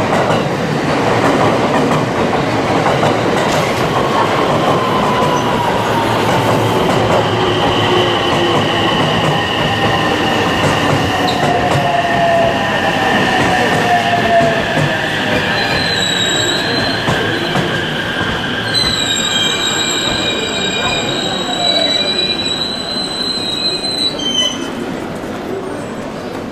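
JR West 225-series electric train running slowly alongside a station platform and braking to a stop, with a steady running noise and tones that fall in pitch as it slows. A high squeal comes in briefly about two thirds of the way through, then returns for several seconds and cuts off suddenly just before the end.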